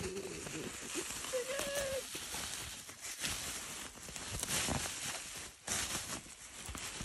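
Plastic bubble wrap crinkling and rustling as it is handled and pulled open, a dense run of small crackles.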